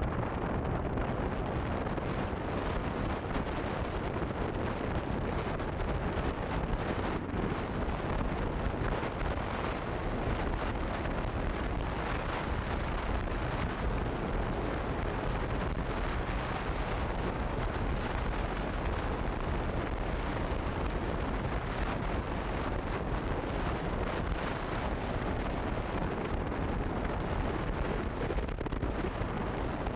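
Steady wind rumble buffeting the microphone of a camera on a moving motorcycle at road speed, a continuous low roar.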